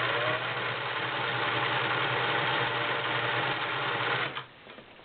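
Belt-driven Singer Model 348 sewing machine running at a steady speed, its motor humming under the whir of the needle-bar mechanism, then stopping a little over four seconds in.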